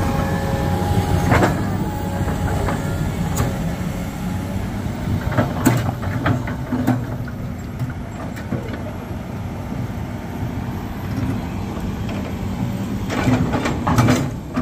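Heavy vehicle traffic with engines running steadily and a low rumble. There are a few sharp knocks and clatter around five to seven seconds in and again near the end.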